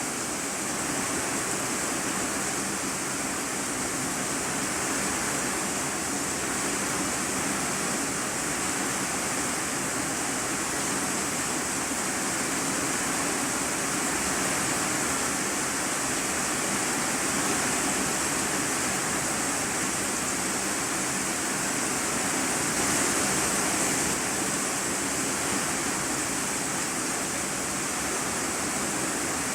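Rain falling on a corrugated iron-sheet roof, heard from inside the room beneath: a steady, dense hiss of drops with no let-up.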